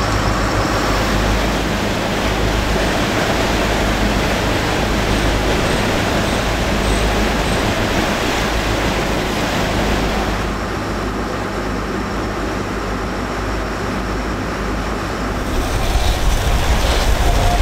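Sportfishing boat under way: the steady drone of its engines, with wind and water rushing past. It gets louder near the end.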